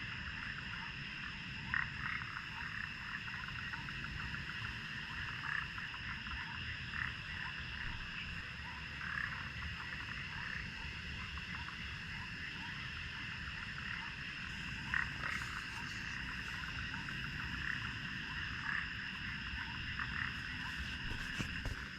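A chorus of frogs calling continuously, with scattered louder calls, over a steady high-pitched ringing.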